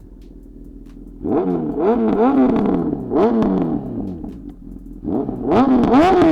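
Honda CB1000R inline-four through a Black Widow full exhaust and LeoVince carbon slip-on with no dB killer fitted, revved loudly from idle in quick blips. It drops back toward idle about four seconds in, then climbs into a run of repeated higher revs near the end.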